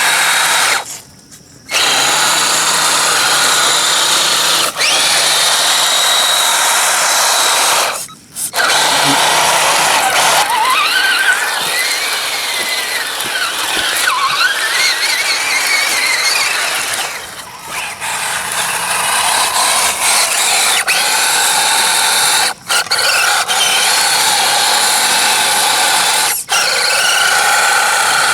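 Axial SCX10 1/10-scale RC truck's electric motor and geartrain whining under load in thick mud, the pitch rising and falling with the throttle. It cuts out abruptly several times when the throttle is let off.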